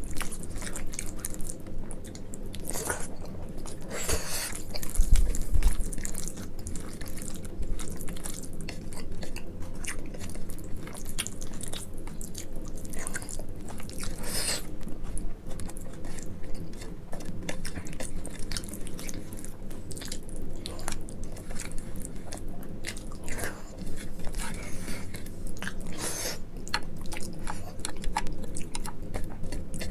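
Close-miked chewing and wet mouth sounds of rice with mashed brinjal bhorta and dal eaten by hand, with soft squishing of fingers mixing the food on the plate. A few louder smacks stand out among the steady run of small clicks.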